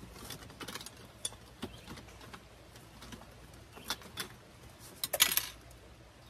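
Kitchen utensils clinking and rattling as a hand rummages through a wicker storage basket, in scattered short clicks, with a louder clatter of several knocks about five seconds in.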